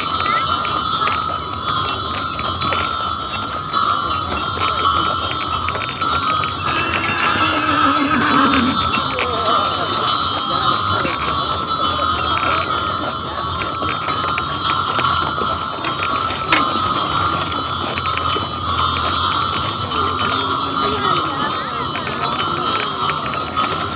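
Harness bells on a team of draft horses jingling continuously as the horses pull a wagon along.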